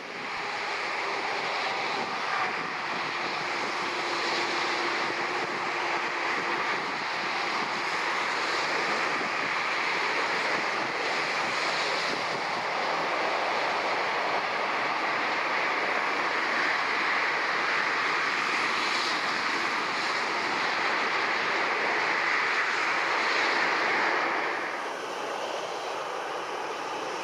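Steady rushing roar of jet airliner engines across the airfield, swelling a little and then dropping off near the end.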